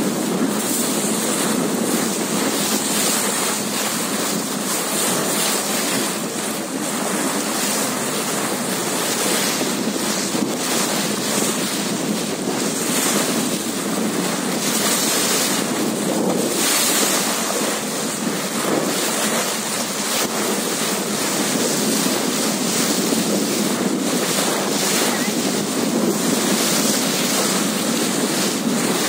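Wind buffeting the microphone over the steady wash of choppy sea water, gusting a little throughout.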